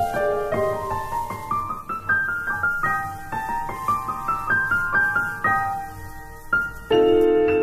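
Background piano music: a quick run of notes stepping up and down, then a loud held chord near the end.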